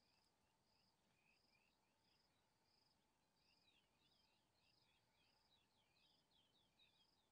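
Near silence: faint outdoor ambience with birdsong, a short high note repeating about every two-thirds of a second, joined about halfway through by a bird's run of quick rising-and-falling chirps.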